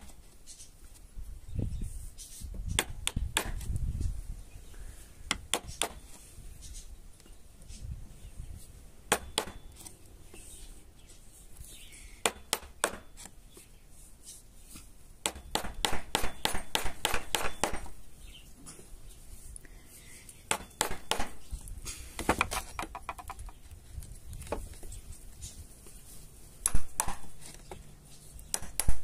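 Irregular clicks and knocks of hand tools and small metal lock parts being worked, with a fast run of clicks about halfway through and a louder knock near the end.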